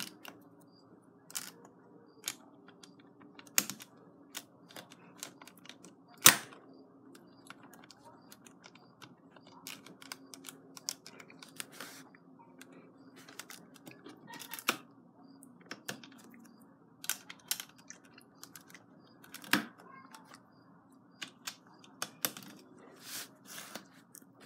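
Plastic LEGO bricks clicking and tapping as they are pressed onto a baseplate to build a tiered stand, in irregular sharp clicks about one a second. Two louder knocks come about a quarter of the way in and again about four-fifths of the way through.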